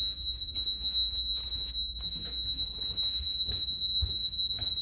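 Honeywell security alarm sounding its alarm as one steady, unbroken high-pitched tone, set off by a tripped dining-room window sensor.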